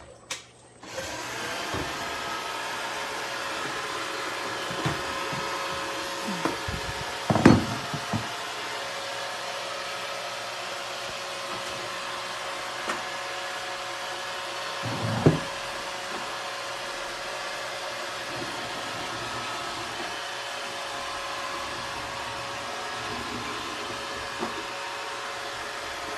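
iRobot Roomba robot vacuum starting up about a second in and then running steadily, the whir of its suction motor and brushes carrying a faint steady whine. A few knocks over it, the loudest about a third of the way in and another a little past halfway.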